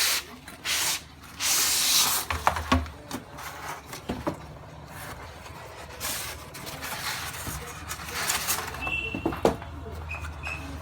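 Packaging being handled and opened: bursts of rustling and scraping, with a few sharp clicks and knocks in between.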